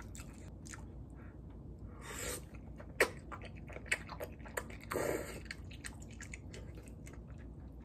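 Close-mic eating sounds: slurping sauce-coated glass noodles and chewing, with wet mouth smacks and a few sharp clicks. Two short slurps, about two seconds in and about five seconds in, are the loudest.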